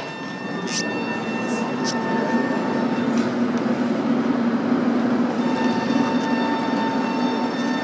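Tram pulling away and running, heard from inside the car: a low rumble that grows louder over the first two or three seconds and then holds, with a steady electric whine and a few short clicks in the first three seconds.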